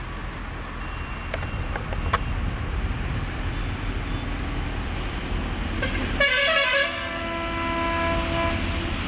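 Electric locomotive horn sounding about six seconds in: a loud blast that settles into a steady chord of several notes for about two more seconds, over a low rumble as the passenger train approaches.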